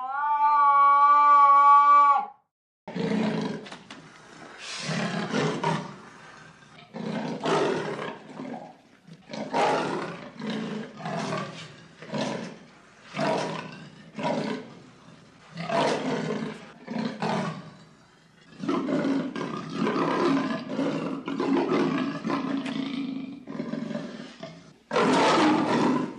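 Leopard calling with a long series of rough, rasping grunts, roughly one every second, running almost together for a few seconds near the end: the leopard's sawing roar. It is preceded by a loud, wavering, pitched call lasting about two seconds.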